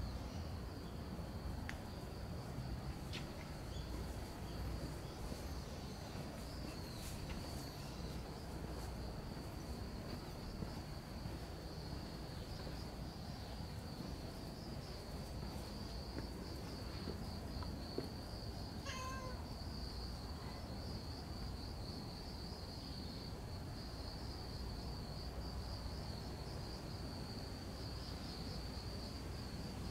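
Insects trilling steadily at a high pitch, with low outdoor rumble underneath. A single short cat meow about two-thirds of the way through.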